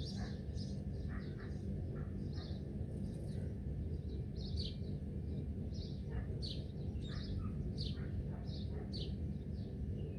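Several small birds chirping, with short, quick chirps coming several times a second, over a steady low background rumble.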